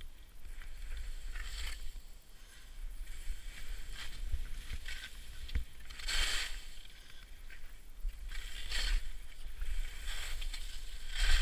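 Skis scraping and swishing over packed snow through a series of turns, one swish every couple of seconds, the loudest about six seconds in, with wind rumbling on the microphone.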